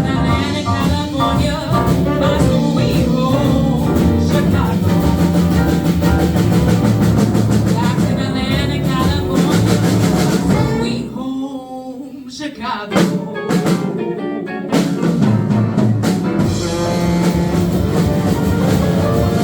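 Live blues band playing, with singing, drums and guitar. The band drops back for a couple of seconds about halfway through, then a sharp hit brings it back in full.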